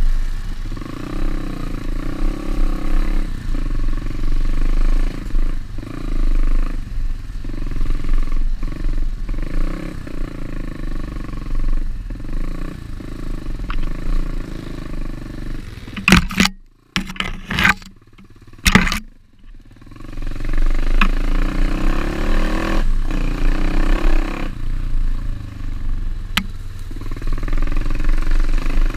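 Pit bike engine running while riding, its pitch repeatedly rising and falling as the throttle is worked. A little past halfway the engine sound breaks off for a few seconds, broken by several sharp knocks.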